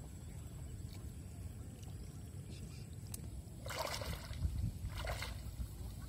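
Legs wading through shallow water, splashing twice, about three and a half seconds in and again about five seconds in, over a steady low rumble.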